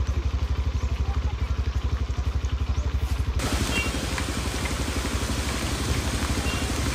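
A steady low motor throb pulsing many times a second. About halfway in, a loud rushing hiss of rain and churned floodwater joins it, as a vehicle ploughs through the flooded street.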